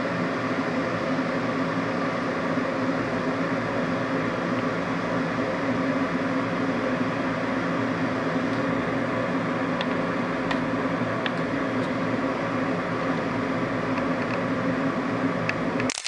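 Glass electric kettle heating water: a steady hiss and rumble as small bubbles form on the heating plate, short of a full boil. A few faint ticks come in the second half.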